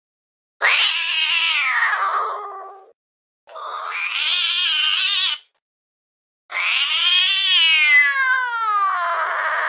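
Domestic cat giving three long, drawn-out meows with short silences between them. The third is the longest and falls in pitch toward its end.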